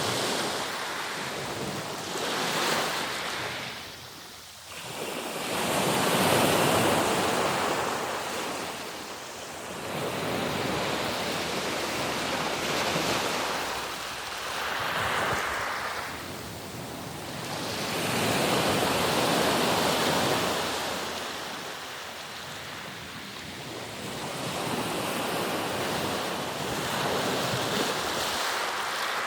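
Sea surf: waves rolling in and washing back one after another, the rushing noise swelling and fading every few seconds.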